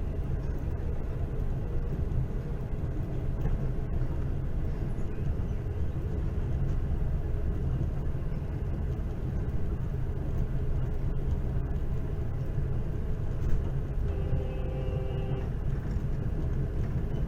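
Steady low rumble of a moving passenger train, heard aboard as it runs along the track. Near the end, a brief tone with several pitches sounds for about a second.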